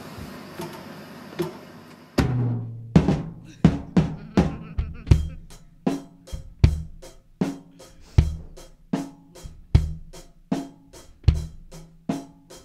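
Rock drum kit played in a steady beat, bass drum and snare hits repeating at an even pace. It comes in with a loud hit about two seconds in, after a quieter opening.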